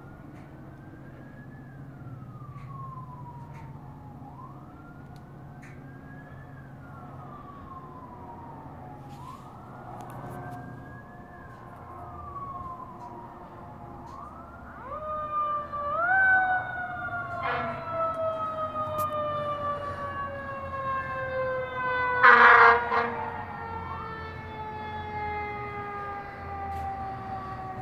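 Fire apparatus sirens: an electronic wail rising and falling slowly at first. About halfway through, a second siren rises and then slowly winds down in pitch. A short, loud air-horn blast comes about two-thirds through, with a briefer one a few seconds before it.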